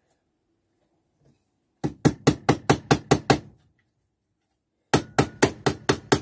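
Small hammer driving a panel pin through tin-can sheet into a wood block: a run of rapid, even taps, about six a second, starting about two seconds in. A second run starts after a pause of about a second.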